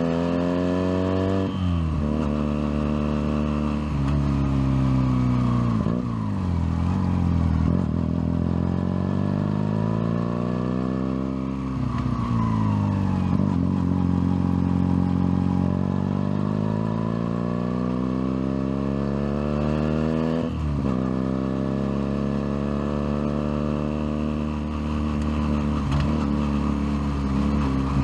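Junak M11 Cafe motorcycle engine, heard close up from the bike, under way in city traffic. The revs climb and drop sharply at each gear change, several times over, and between shifts they build slowly and ease off again as the bike speeds up and slows.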